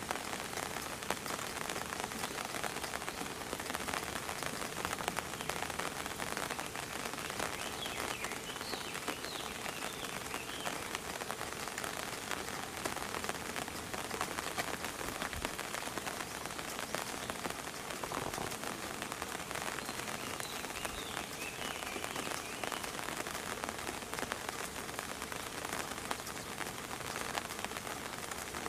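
Steady rain falling, a dense patter of raindrops on surfaces.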